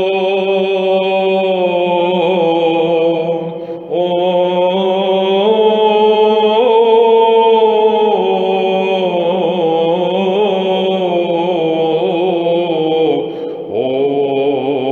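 Male voice chanting in Byzantine style, drawing out a long melisma on a few syllables at the close of the Epistle reading, with a steady low note held beneath. The melody steps up about four seconds in and again at five and a half, with brief breaths near four and thirteen and a half seconds.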